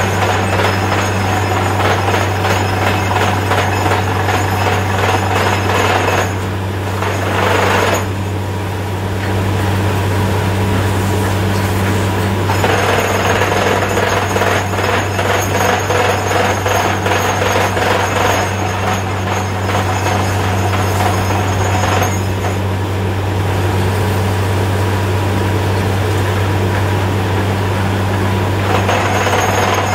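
Truck-mounted borewell drilling rig running under load: a steady low engine and compressor drone with a fast, continuous rattling hammer from the drill working in the hole. The hammering eases briefly about a quarter of the way in and again about two-thirds through.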